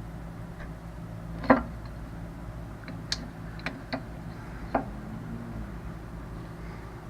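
A handful of sharp clicks and knocks from brake parts and tools being handled during a rear brake pad change, the loudest about a second and a half in, over a steady low hum.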